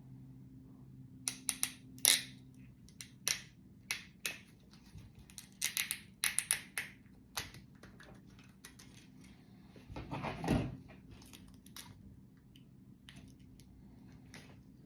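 Hard plastic parts of an old Nokia cellphone clicking and clattering as they are handled and taken apart: a quick string of sharp clicks over the first half, a longer scraping rustle about ten seconds in, then a few light ticks.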